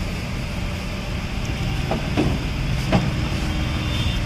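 A few knocks of a kitchen knife on a wooden chopping board as an onion is cut, the loudest about three seconds in, over a steady low background rumble.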